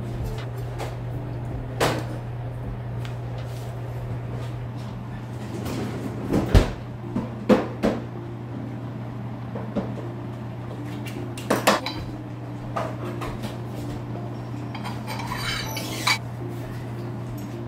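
Kitchen clatter: scattered clinks and knocks of a stainless steel pan and utensils being handled on a cooktop. The louder strikes come a little before the middle and again past it, with a short rattle near the end, over a steady low hum.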